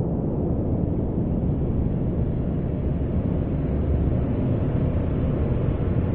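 Experimental noise improvisation: a dense, steady low rumbling noise that holds unchanged throughout.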